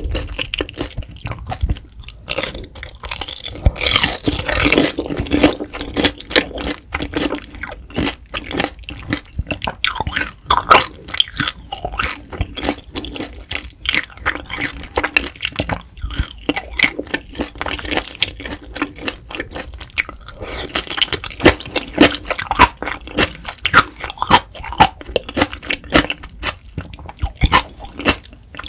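Close-miked chewing of a mouthful of grilled beef intestine (daechang): a fast, irregular run of short mouth clicks and smacks, busier about four seconds in and again after about twenty seconds.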